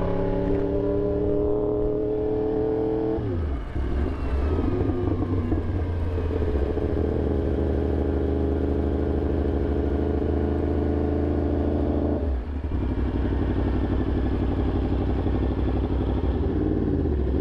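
Sport motorcycle engine heard from the rider's camera while riding: it pulls with rising pitch for about three seconds, drops sharply, holds a steady pitch for several seconds, then drops again about twelve seconds in and winds down near the end.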